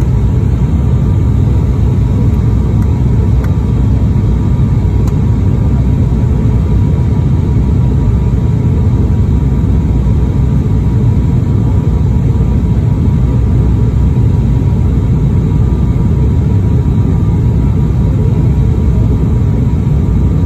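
Steady cabin drone of a high-wing turboprop airliner in flight, heard from a window seat: a heavy low rumble with faint steady tones above it.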